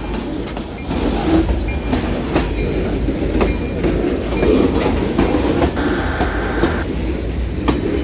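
Freight train cars rolling past on the rails, a steady rumble with the clickety-clack of wheels over rail joints and a brief higher-pitched whine about six seconds in.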